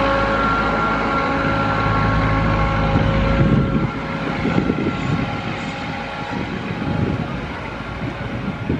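Diesel locomotive horn sounding a steady chord over engine and train rumble, cutting off about three seconds in, followed by an uneven rumbling noise.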